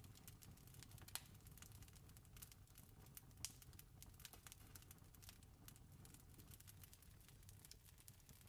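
Campfire crackling faintly: a steady scatter of small snaps and ticks over a low rumble, with two sharper pops about a second in and about three and a half seconds in.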